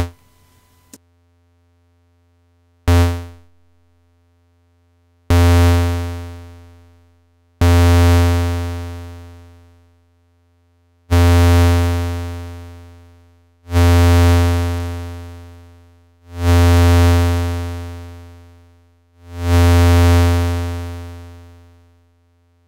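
A low Eurorack synthesizer note is sounded seven times, each shaped by the Make Noise Contour's two-stage attack-decay envelope with sustain turned fully counterclockwise. The first note dies away quickly, later ones fade out over about two seconds, and the last two swell in more slowly before fading.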